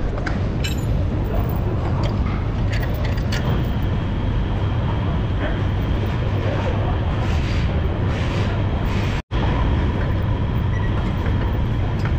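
Steady low rumble of workshop background noise with a few light metal clinks in the first few seconds as a steel chain is handled and hooked around the suspension. The sound cuts out for a moment about nine seconds in.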